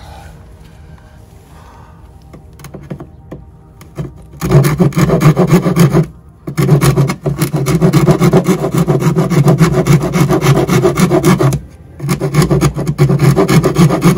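Hand file rasping back and forth in quick, loud strokes against the edge of a camper van's battery compartment opening, filing away material to give the battery posts clearance; the strokes start a few seconds in, after some quieter handling, and stop briefly twice.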